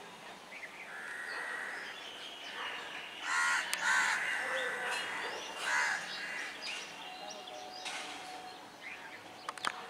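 Crows cawing, with the loudest caws in the middle, over steady railway-station background noise.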